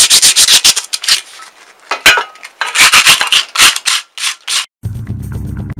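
80-grit sandpaper scrubbed by hand over a metal motorcycle footboard plate: rapid, even back-and-forth strokes that slow into separate, irregular strokes. Near the end the sanding cuts off abruptly and a steady low sound takes over.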